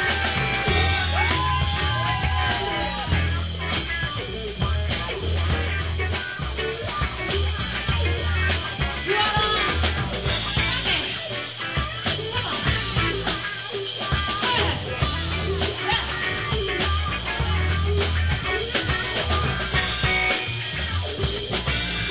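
A live band playing: drum kit with cymbals, a pulsing bass line, and guitars, with a gliding melodic line about one to three seconds in.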